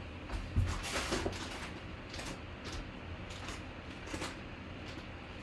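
Handling noises: a scattered series of light knocks and rustles over a low steady background, loudest about half a second to a second in.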